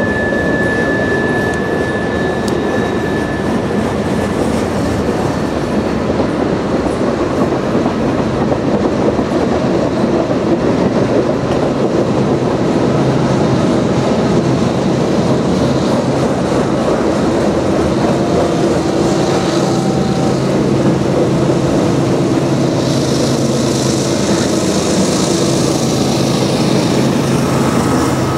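Freight train cars rolling past with steady, loud wheel-and-rail noise and a thin, high wheel squeal for the first few seconds. From about halfway, the drone of diesel locomotive engines joins as a second freight's lead units come out of the tunnel on the adjacent track and pass close by, with a hissing rush near the end.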